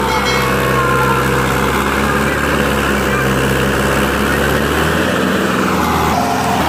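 Mahindra 575 DI tractor's four-cylinder diesel engine running steadily under load, pulling a trolley heaped with sugarcane.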